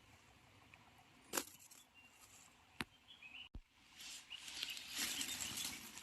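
A couple of sharp snaps or clicks in a quiet bamboo grove, a bird chirping briefly, then from about four seconds in a dense crackling rustle of dry leaves and undergrowth being trampled and brushed through while foraging for bamboo shoots.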